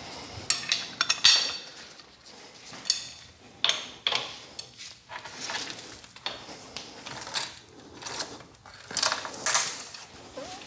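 Metal hand tools and loose engine parts clinking and knocking together at irregular intervals during an engine teardown.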